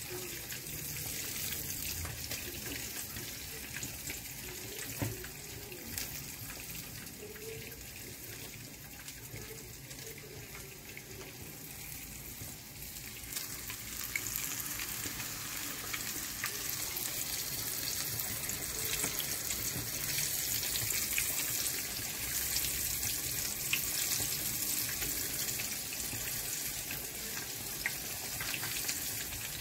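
Flour-coated carp pieces frying in a pan of oil: a steady sizzle that grows louder about halfway through.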